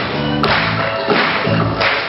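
Music with a steady beat of about one and a half beats a second over held notes.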